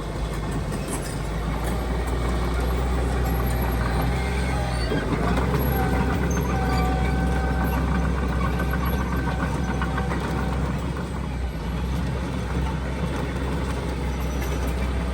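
Heavy diesel earthmoving machinery running steadily with a deep engine rumble. A higher whine joins for a few seconds in the middle.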